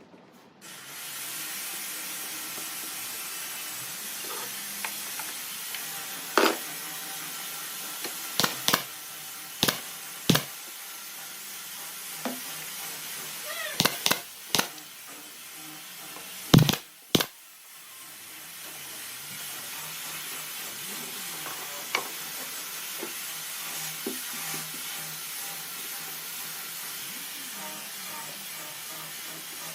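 A steady hiss, broken by about a dozen sharp knocks, most of them between six and seventeen seconds in. The hiss stops briefly near seventeen seconds and then comes back.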